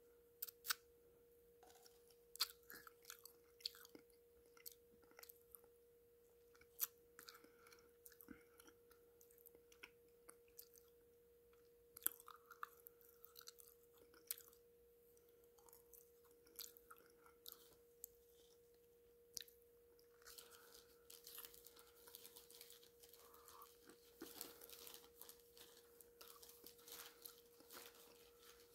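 Faint close-up chewing of a spoonful of clay pot paste: scattered wet clicks and small crunches, growing into a denser crackle about twenty seconds in. A faint steady hum sits under it.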